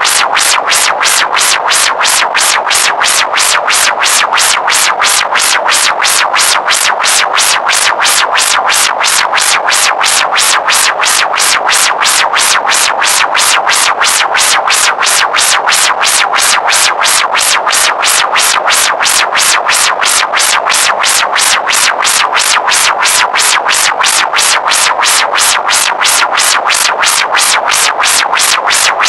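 Synthesizer music with a steady, even pulse of about three beats a second and no speech.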